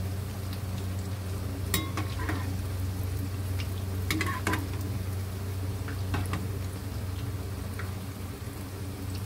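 Corn fritters frying in hot oil, a steady sizzle, while a metal spatula clinks and scrapes against the pan several times. A steady low hum runs underneath.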